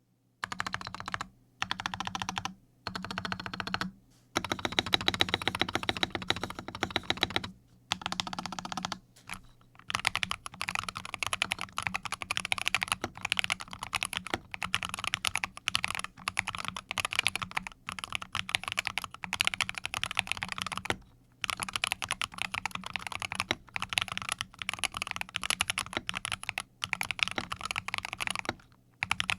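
Typing on a Corsair K70 TKL keyboard with fully lubricated Corsair OPX linear optical switches, keys pressed in quick succession. The first stretch comes in short bursts with brief pauses, and fast, near-continuous typing runs from about ten seconds in.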